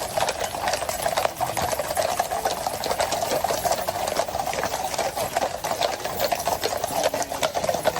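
Heavy rain falling, a dense and steady patter of drops close to the microphone.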